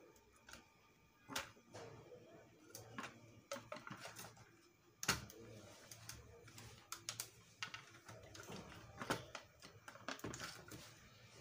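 Small plastic wire-harness connectors being handled and pushed into the sockets of a Janome Secio 8200 sewing machine's circuit board: faint, irregular clicks and handling noise, with sharper clicks about one and a half, five and nine seconds in.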